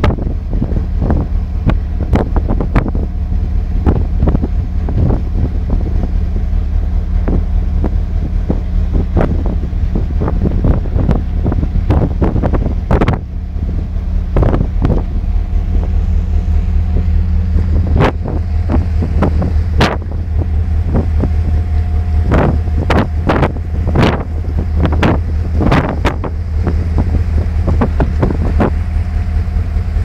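Sea ice cracking as a ship pushes through it: irregular sharp cracks and knocks of floes breaking and striking the hull, over a steady low rumble with wind on the microphone.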